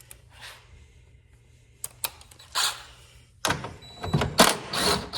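Socket wrench and metal mower parts being handled: a couple of sharp clicks about two seconds in, then a stretch of rattling and scraping in the second half.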